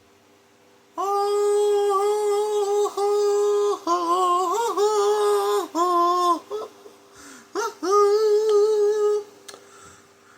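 A person humming a tune in a high voice, in long held notes with short breaks between them.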